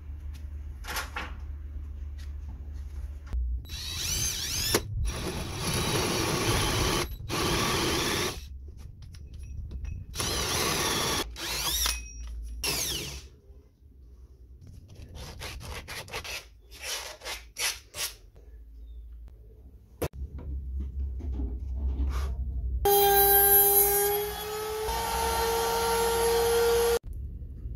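Cordless drill driving a hole saw through a thick wooden block in several bursts, each spinning up with a rising whine and grinding into the wood. Near the end a power-tool motor runs with a steady whine for several seconds.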